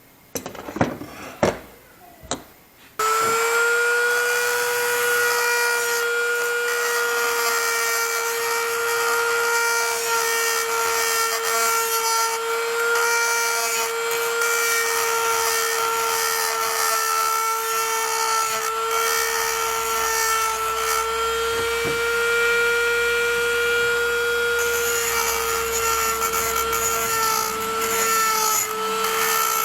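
A few knocks, then about three seconds in a power tool starts and runs steadily with a high, even whine and a grinding hiss, typical of abrasive or wire-wheel work on the cleaver's steel.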